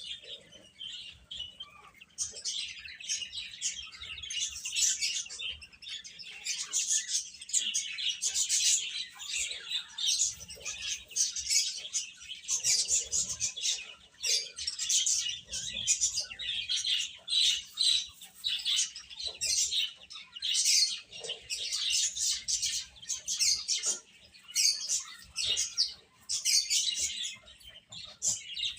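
A group of baby chicks peeping: many short, high chirps overlapping almost without a break, thinner for the first couple of seconds.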